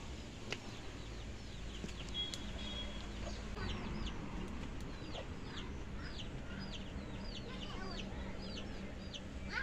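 Bird peeping: a regular run of short, high notes that fall in pitch, about two a second, starting a few seconds in. A single sharp click comes about half a second in.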